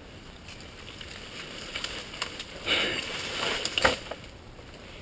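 A person wading through muddy water, with a couple of sloshing, squelching steps about halfway through and a sharp knock just before the end.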